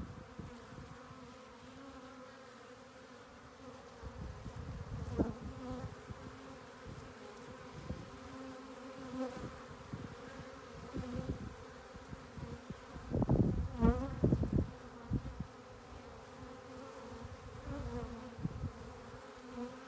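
A swarm of honeybees buzzing steadily, a constant hum of many wings close by. Low rumbles come and go over it, loudest about thirteen to fifteen seconds in.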